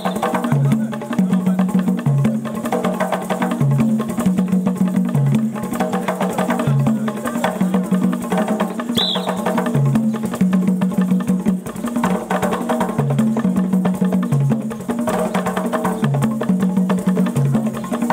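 An ensemble of tall wooden Congolese hand drums played with bare hands in a fast, driving interlocking rhythm: quick sharp slaps over a repeating pattern of deep drum tones.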